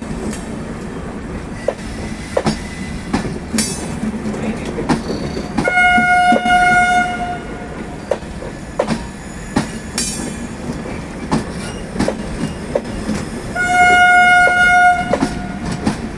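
WAP-4 electric locomotive's twin-tone horn sounding two blasts of about a second and a half each, several seconds apart, over the steady running noise of the train with its wheels clacking over rail joints.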